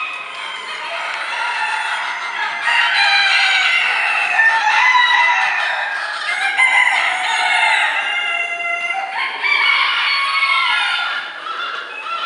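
Many chickens calling at once: roosters crowing over one another and hens clucking, a dense overlapping chorus of show poultry with no break.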